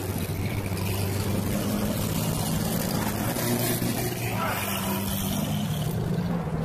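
Lamborghini supercar engines running at low revs as a convoy of the cars rolls slowly past, a steady low rumble.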